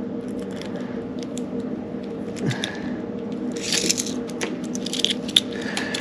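Small ticks, clicks and scraping as a broken BOA lace cable is pulled out of a snowboard boot's lace guides and dial by hand, with a louder scratchy rustle about three and a half seconds in and again near five seconds.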